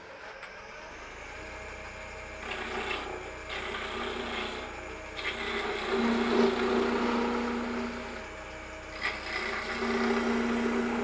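Oneway wood lathe spinning a green-wood twig pot while a gouge takes light cuts on its unsupported end, with a steady scraping hiss of the tool on the wood. Twice a humming tone comes in: the workpiece vibrating because the tailstock has been backed out.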